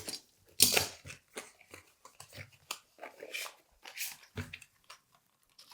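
Packaging being handled while a boxed Intel processor is opened: a string of short clicks, taps and rustles of cardboard and plastic, the loudest less than a second in.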